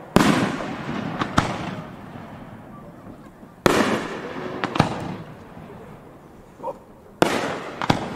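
Aerial firework shells bursting overhead: three big booms about three and a half seconds apart, each dying away in a long rolling echo, with a smaller sharp crack about a second after each.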